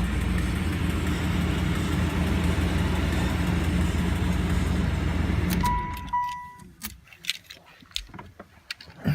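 1991 Chevrolet Caprice wagon's throttle-body-injected V8 running steadily on its freshly replaced fuel filter, then switched off abruptly just under six seconds in. Two short electronic beeps follow, then light clicks and jingles of keys.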